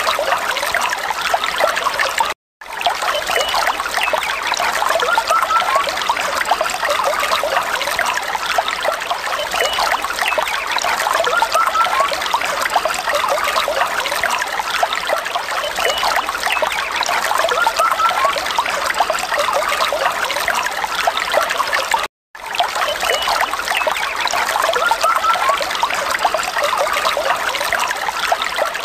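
Shallow stream trickling and gurgling over rocks, a steady babble of running water. It cuts out for a moment twice, about two seconds in and again near twenty-two seconds.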